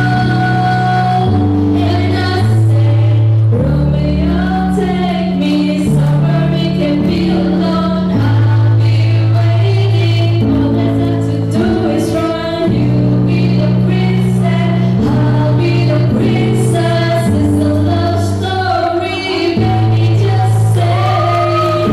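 Music: a song sung over accompaniment, with held bass notes that change every second or two beneath the sung melody.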